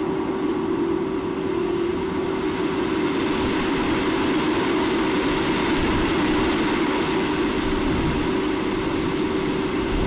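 Steady rushing of river water on an outdoor webcam microphone, with a faint steady hum underneath.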